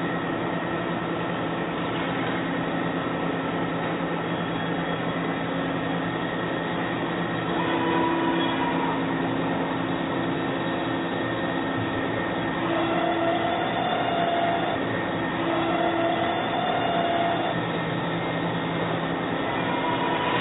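Doosan BM 2740M CNC milling machine running, a steady mechanical hum and hiss with several fixed tones. Higher whining tones rise over it for a second or two at a time, three times in the middle.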